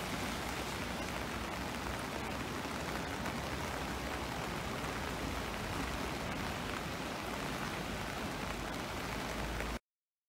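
Heavy downpour and rushing floodwater, a steady hiss that cuts off abruptly near the end.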